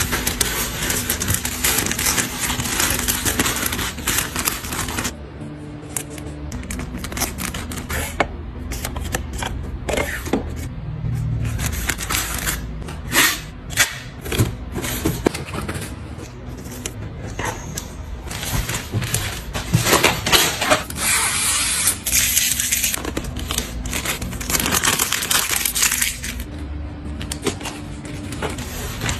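Packaging rustling and crinkling as it is handled and opened, with many sharp crackles and clicks in uneven bursts, strongest at the start and again about two-thirds of the way in. Music plays faintly underneath.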